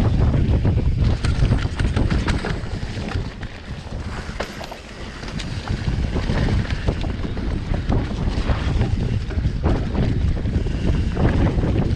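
Wind buffeting the microphone on a fast ride down a wet, muddy trail, with the bike's tyres and frame rattling and knocking over rough ground. The noise eases briefly about four seconds in.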